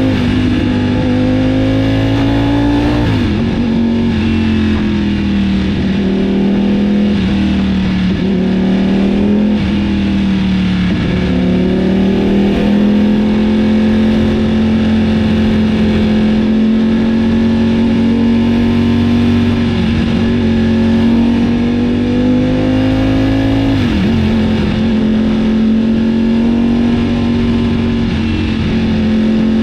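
Ducati Panigale V4's Desmosedici Stradale V4 engine running under way, a loud steady note whose pitch climbs slowly and drops suddenly three times, about 3, 11 and 24 seconds in.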